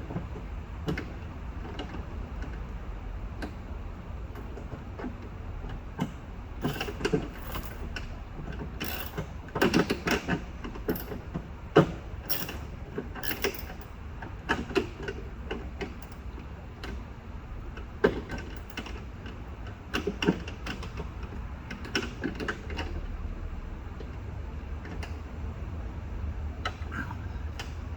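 Irregular metallic clicks and knocks of a short socket on a wobble extension being worked inside a car door, fitted through a small drilled access hole onto the rear door handle's bolt, over a steady low hum.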